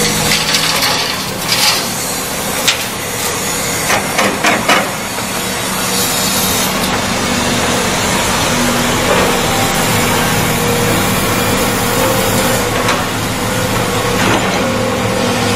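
Diesel engines of excavators and a dump truck running steadily. Over them come scraping and knocking from an excavator bucket digging and loading soil and rock, with the knocks grouped mostly in the first five seconds.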